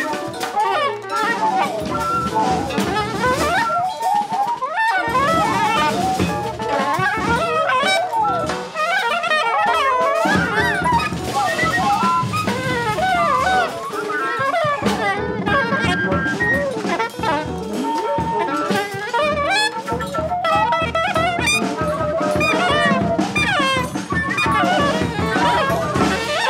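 Large jazz ensemble playing densely: saxophones, brass and woodwinds in many overlapping lines, several sliding in pitch, over a drum kit.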